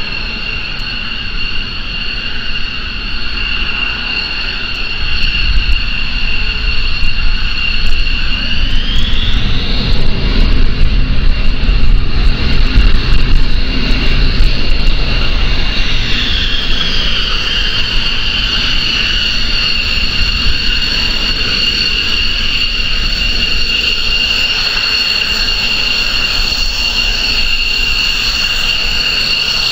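Mitsubishi F-15J fighters' twin turbofan jet engines at taxi power: a steady high-pitched turbine whine over a low rumble. About nine seconds in the whine climbs in pitch and the rumble grows loudest, then about seven seconds later the whine sinks back to its steady pitch.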